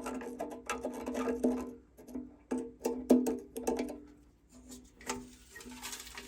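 Background music of plucked strings, notes struck in quick succession. About five seconds in, a steady hiss starts under it.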